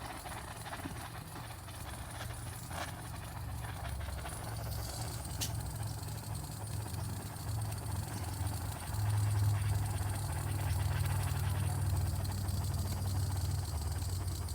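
Butane torch lighter flame running with a steady low rumble while a large cigar is lit, growing louder about nine seconds in. Two faint clicks come in the first half.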